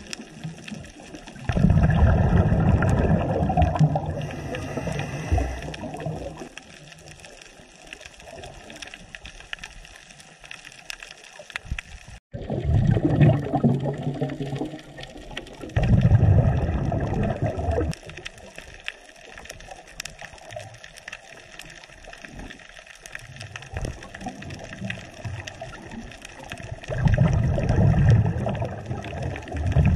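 Scuba diver's exhaled bubbles heard underwater: four bursts of bubbling from the regulator, each a few seconds long, with a quieter water hiss between them.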